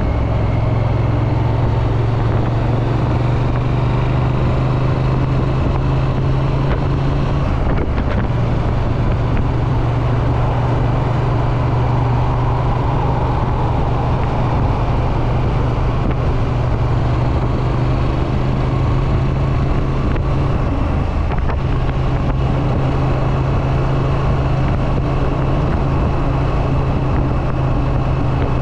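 Triumph Street Twin's 900 cc parallel-twin engine running steadily through its exhaust, picked up by a rider's chest-mounted camera. The drone breaks briefly about eight seconds in.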